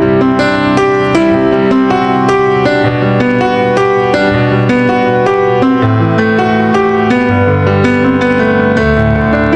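Instrumental background music led by a piano or electric keyboard, with notes struck in quick succession over held bass notes.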